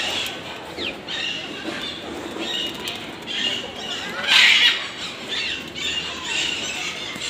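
Caged parrots calling: a chorus of short, shrill chirps and squawks, with one loud harsh squawk about four and a half seconds in.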